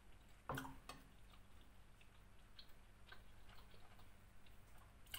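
Near silence with a few soft clicks, the loudest about half a second in and a weaker one just after, from someone eating with a fork.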